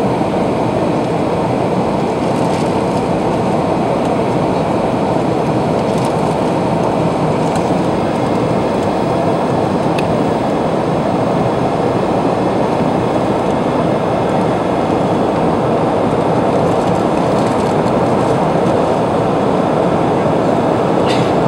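Steady airliner cabin noise during the climb after takeoff: engine and airflow noise heard inside the passenger cabin, even and unbroken.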